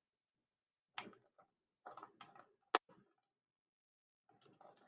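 Faint clicks and scrapes of a lime being juiced on a citrus juicer, with one sharper click a little past the middle.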